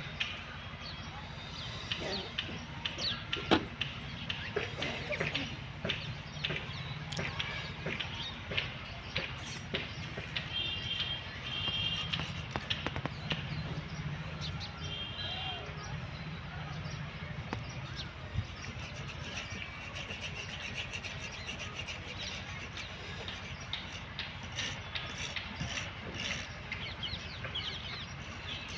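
Outdoor ambience: small birds chirping now and then, including short repeated chirps twice in the middle, over a steady low hum, with scattered light clicks and ticks.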